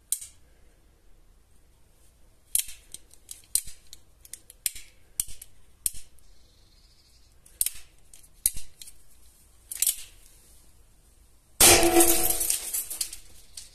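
Chiappa SA 1873 9 mm Flobert revolver: a series of sharp metallic clicks as the cylinder is turned and loaded through the loading gate, then a single shot near the end that rings and echoes for about a second and a half in the small indoor range.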